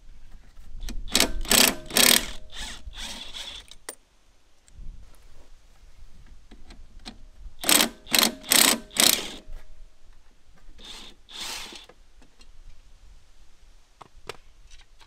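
Cordless DeWALT 18V XR impact wrench hammering in short bursts as it undoes the mower's blade bolts, in three spells: a run of bursts just after the start, four quick bursts in the middle and two softer ones near the end.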